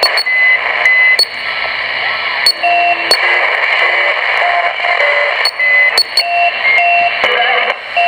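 CB radio receiving an unidentified beeping signal on channel 39 (27.395 MHz): short beeps at a few different pitches, low and high, keep repeating over a steady hiss of static, with sharp clicks between them. It sounds like a wide AM signal, which the owner takes for a channel marker, jamming or a practical joke.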